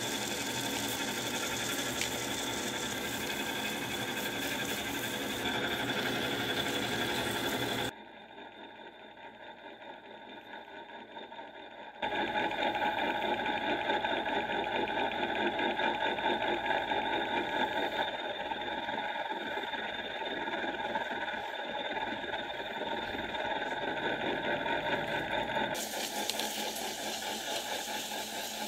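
Wood lathe running steadily with sandpaper held against a spinning epoxy-resin mug blank: an even motor hum under the hiss of the abrasive. It drops much quieter for a few seconds about a third of the way in, then comes back louder.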